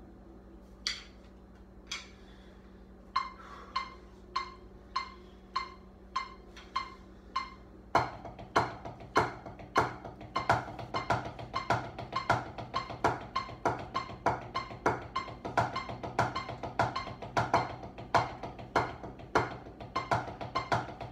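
Wooden drumsticks striking a drum practice pad: spaced single strokes at first, then from about eight seconds in a faster, louder, steady rhythmic pattern.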